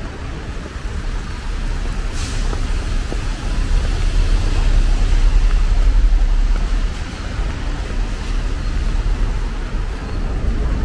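Street traffic on a rain-wet city street, with a low rumble that swells and fades between about four and seven seconds in, as a vehicle passes.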